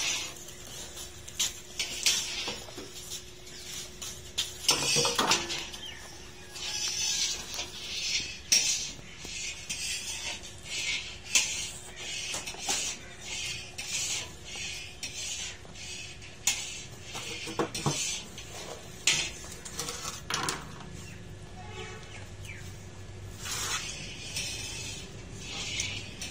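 A plate pressing and scraping crumbly sohan halwa flat in lined steel trays: irregular, quick scraping and rustling strokes with the odd tap.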